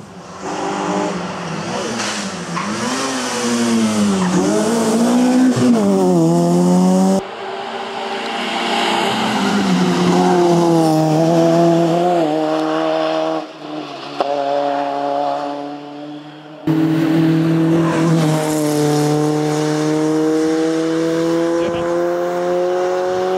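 Peugeot 106 S16 rally car's engine at full race effort, pitch dropping and climbing as it brakes, shifts and accelerates through a bend, then pulling hard with the pitch slowly rising as it drives up a hill, in several edited passes.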